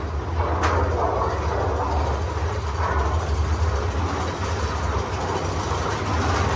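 Mine-train roller coaster running on its track: a steady low rumble and rattle, with one sharp clack a little over half a second in.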